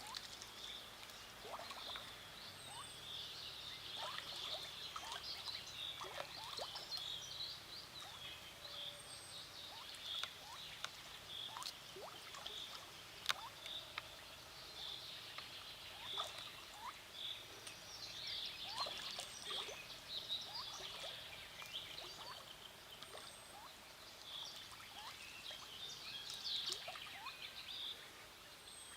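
Ducklings peeping in a dense, continuous high chatter, with scattered short splashes in the water.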